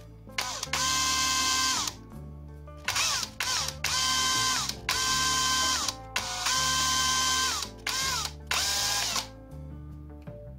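Electric drill motor run in several short bursts, each whining up in pitch as it spins up, holding, then dropping as it winds down, over background music.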